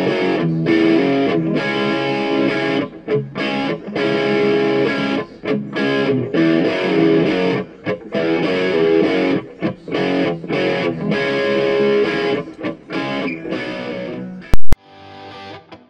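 Outro music with distorted electric guitar and a steady rhythmic pulse. Near the end a single sharp click cuts in, and the music goes on much quieter and choppier.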